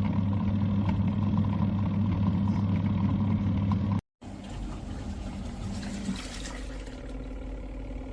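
Mini washing machine's electric motor running with a steady, loud hum. About four seconds in, after a brief cut, a quieter, lower rumbling run follows.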